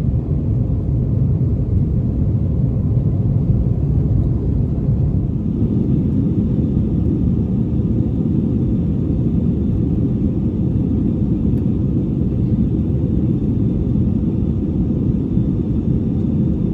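Steady low rumble of an Airbus A321-200 airliner heard inside the passenger cabin: engine and airflow noise, even and unchanging.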